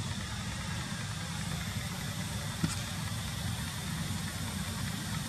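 A steady low engine rumble, like a motor idling, under an even hiss, with one sharp click about two and a half seconds in.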